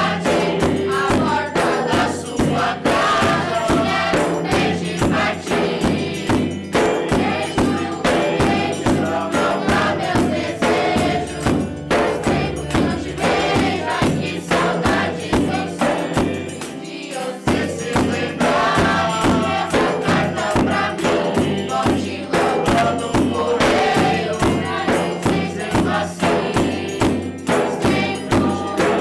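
A group of students singing a Brazilian popular song together in Portuguese, over a steady percussion beat with shaken and struck hand percussion; the sound dips briefly about seventeen seconds in.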